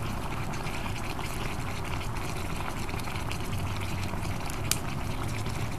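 Water in a plastic bucket bubbling and sizzling around fire-heated quartzite stones, a steady noise with one sharp tick about three-quarters of the way through.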